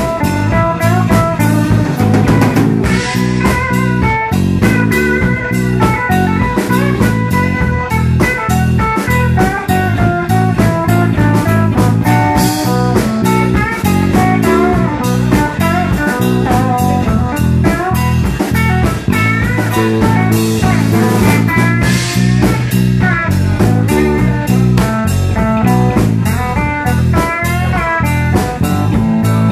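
Live blues band playing: electric guitar lead with bent notes over electric bass and a drum kit, with a few cymbal crashes.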